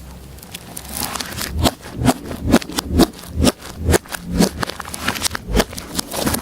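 Slime being squeezed and poked by hand, making an irregular run of sticky squelches and clicky pops, several a second, starting about a second in.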